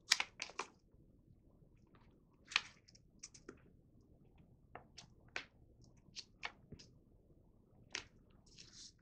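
A sheet of paper being folded and creased by hand: irregular crisp crackles and soft rustles as the fold is pressed down.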